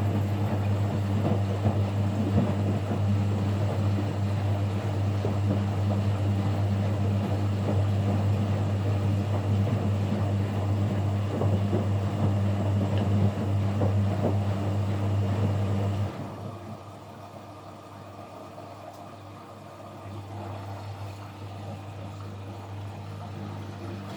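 Kunft washing machine running with a loud, steady low hum that cuts off suddenly about two-thirds of the way through, leaving a quieter hum of the machine.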